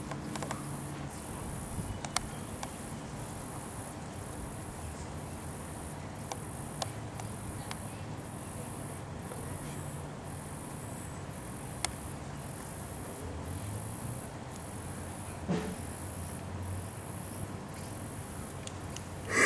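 Insects chirping steadily, about two high-pitched chirps a second, with a few faint clicks and a brief low thump about three-quarters of the way through.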